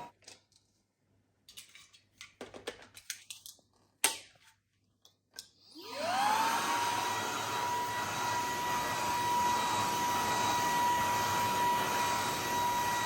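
A few clicks and handling knocks, then the Fabuletta cordless stick vacuum's brushless motor starts about six seconds in: a rising whine that settles into a steady whine over a rush of air as it runs.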